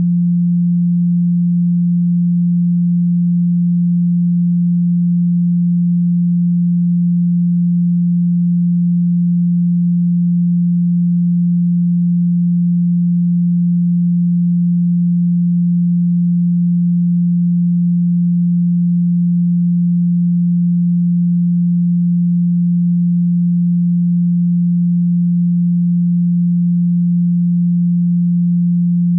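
A pure sine tone at 174 Hz, the Solfeggio 'healing' frequency. It is a low, steady hum held at one pitch and one level throughout.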